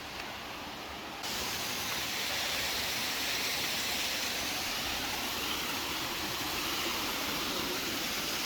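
Steady rush of running water, a stream or small waterfall; it gets louder and brighter about a second in and then holds steady.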